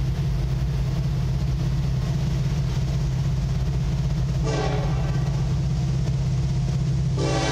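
Norfolk Southern SD70ACe locomotive's air horn: a short toot about halfway through, then a long blast starting near the end, over a steady low rumble.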